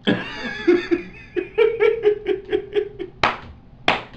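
Hearty laughter: a run of quick rhythmic "ha-ha" pulses, about five a second, then a few sharp breathy gasps near the end.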